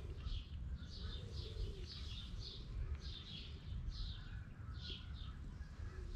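A bird chirping repeatedly, short high chirps about two a second, heard faintly over a low steady background rumble.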